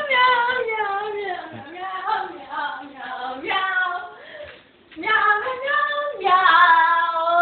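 A woman's high voice wailing long, drawn-out, sing-song meows in imitation of a cat, the pitch sliding up and down through each call, with a short break about four and a half seconds in.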